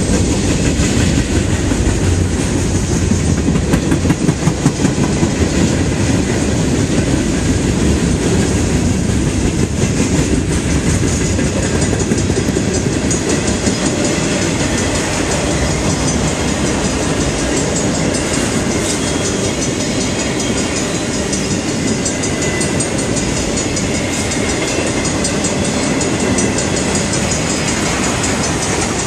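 Freight train rolling past, its cars' wheels clacking steadily over the rail joints.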